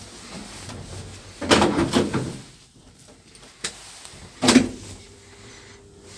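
Elevator car's automatic sliding doors closing: two loud knocking, rattling sounds, a short button click between them, then a faint steady hum once the doors are shut.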